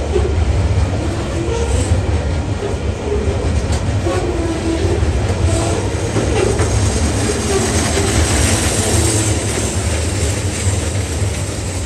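Loaded container wagons of a TasRail freight train rolling past close by. Steady rumble and clatter of steel wheels on the rails, with sharp clicks as the wheels pass over rail joints.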